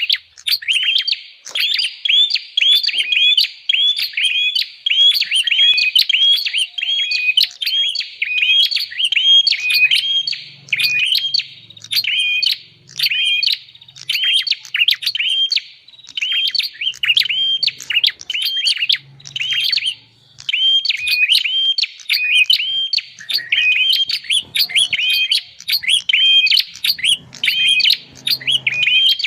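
Prinia (prenjak) calls recorded for use as a bird-trapping lure: rapid, unbroken chirping, several sharp notes a second. A faint low hum comes and goes under the calls from about ten seconds in.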